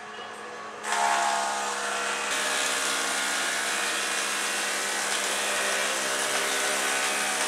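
Woodworking machinery running steadily, a hum of several steady tones over a hiss. It gets louder about a second in and then holds even.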